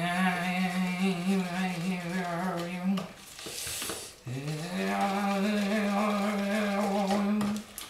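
A man's voice singing two long wordless notes of about three seconds each, each sliding up at its start and then held with a slight waver.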